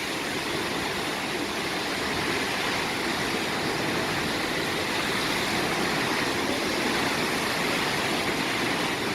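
Heavy ocean surf breaking on the shore, a steady, even rush of water noise.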